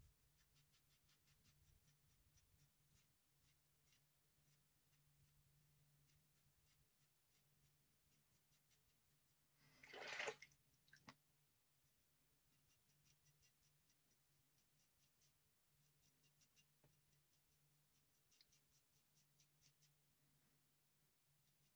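Rockwell 6C safety razor with a Personna Super Blue blade scraping through about a week's stubble on a lathered face: a faint crisp rasp of short strokes, about four a second, in runs with pauses. About ten seconds in comes one brief, louder rush of noise.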